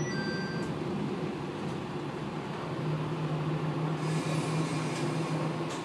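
Cabin noise of an Amagi Railway diesel railcar running: a steady engine hum and rumble, with a low droning tone that comes in about three seconds in and holds.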